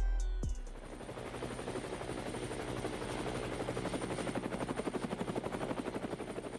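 The song's last bass note dies away about half a second in. Then a helicopter's rotor chops rapidly and evenly, growing louder as it approaches and fading again near the end.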